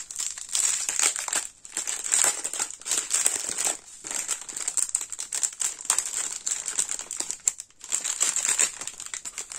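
Clear plastic bag of diamond-painting drills crinkling as it is handled and pulled at to open it, with short pauses about one and a half, four and nearly eight seconds in.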